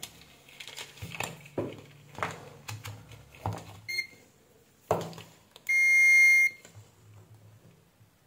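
UNI-T clamp meter being handled and switched, with a run of clicks, a short beep about four seconds in, then its continuity buzzer beeping steadily for just under a second. The beep shows continuity across a backlight LED that is short-circuited inside.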